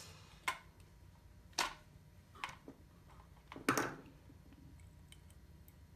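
Small clicks and taps of plastic parts and wires being handled while motor wires are fitted into the terminals of a motor driver board on a toy RC car chassis: about four short clicks, the loudest a little before the end, over a faint low hum.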